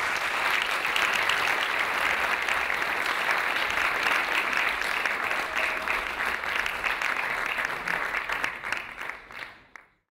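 Audience applauding, a dense steady clapping that thins into scattered single claps near the end and then cuts off.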